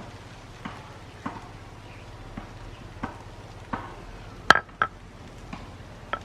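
Cooking spoon or spatula knocking and scraping against a pot while stirring curry: a string of short, irregular clinks, the loudest ringing briefly a little past the middle.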